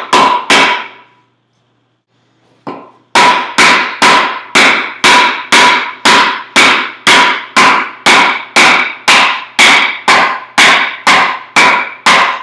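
Wooden club driving homemade wooden wedges into a maple log to split it along the grain. Sharp knocks come about two a second, each with a brief ringing tone. They pause for about two seconds soon after the start, then keep going steadily as the split opens up.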